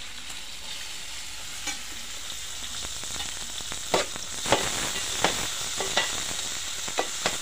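Sliced onions and green chillies sizzling in hot oil in an aluminium pan, stirred with a metal ladle that scrapes and clinks against the pan several times in the second half.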